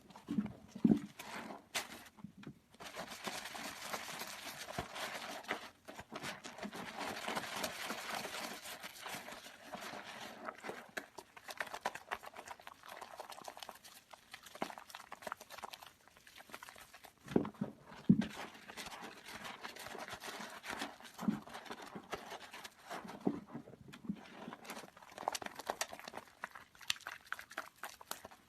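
Soaked bar soap squeezed by hand: wet squishing and squelching, with a long hissing stretch of mushy crackle a few seconds in, and sharper squelches scattered later.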